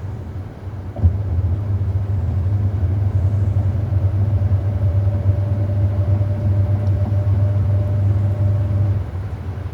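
Hoover 800RL top-loading washing machine: its motor cuts in with a click about a second in, runs with a steady low hum and a faint whine over it, then drops back near the end.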